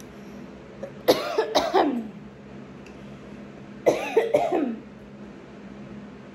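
A woman coughing into her fist: two short fits of several coughs each, the first about a second in and the second about four seconds in.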